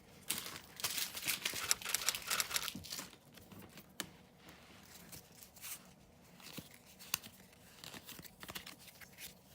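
Foil booster-pack wrapper being torn open and crinkled, densest during the first three seconds, then lighter scattered crinkles and clicks as the pack is handled.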